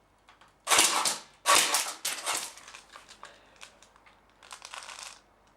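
Airsoft gun firing at an old mobile phone: two loud half-second rattles of shots and pellet hits about a second in and soon after, then scattered lighter clicks and a fainter rattle near the end.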